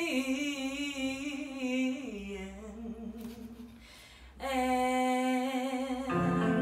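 A young woman singing unaccompanied in a small room: a soft, trailing phrase with wavering pitch, a breath, then a long held note. Just before the end, an accompaniment comes in beneath the voice.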